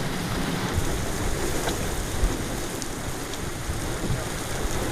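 Steady rushing noise of a heavy rainstorm, with wind buffeting the microphone in a low, uneven rumble.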